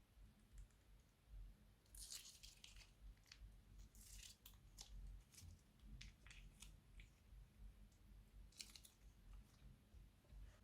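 Faint, irregular crinkling and crackling from plastic piping bags of slime being handled, in scattered short bursts.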